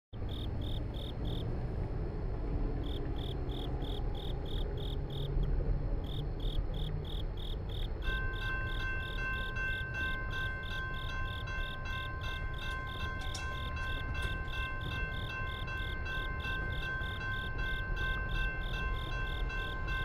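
Crickets chirping in an even rhythm, about three chirps a second, over a low steady rumble. About eight seconds in, a set of steady high tones joins and holds.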